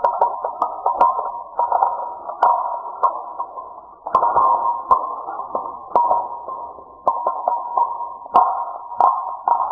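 A steady electronic pinging tone with sharp clicks falling irregularly, one or two a second.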